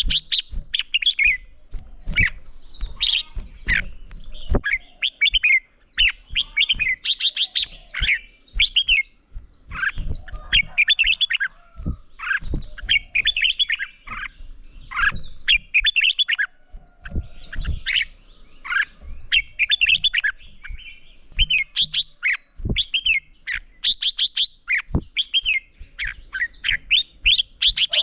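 Red-whiskered bulbul song: short, rapid warbling phrases repeated almost without pause, in the bird's full competitive singing, with scattered faint knocks beneath.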